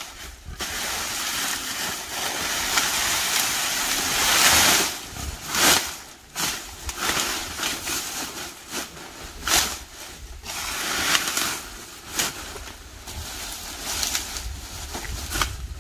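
Dry stalks and leaves rustling and crackling as they are dragged and gathered up by hand: a continuous rush over the first few seconds, then a string of shorter bursts.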